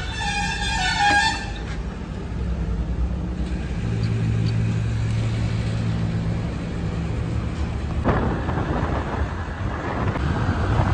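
A short, slightly wavering horn-like toot, then a vehicle engine running steadily at a low hum. About eight seconds in, wind and road noise take over as the vehicle pulls away onto the road.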